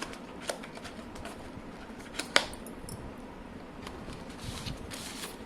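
Handling of a Redmi Note 9 Pro phone box and its contents: a few light clicks and taps, with one sharp click about two and a half seconds in.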